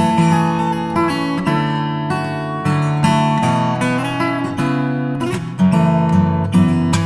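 Background music: an acoustic guitar playing strummed chords with a steady beat.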